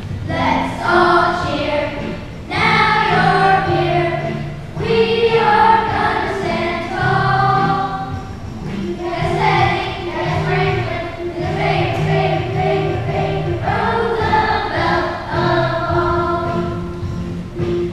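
A group of children singing together in phrases a couple of seconds long, over a musical accompaniment with a low, stepping bass line.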